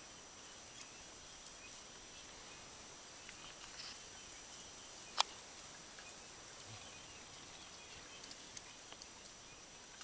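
Quiet mountain-forest ambience: a steady high hiss with a few faint ticks, and one sharp snap about five seconds in.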